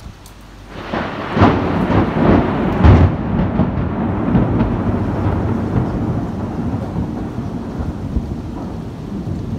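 A close thunderclap breaks in about a second in, crackling sharply for a couple of seconds, then rolls on as a long, deep rumble that slowly fades, over steady rain.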